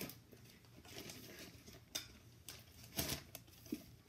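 Plastic wrapping around a toy oven rustling and crinkling as it is handled, with a few sharper crackles about two and three seconds in, the one near three seconds the loudest.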